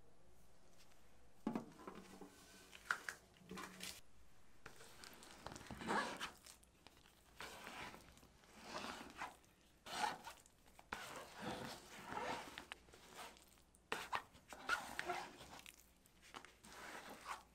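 Irregular taps, clicks and rustling scrapes of hands handling things at close range, in short bursts every second or so.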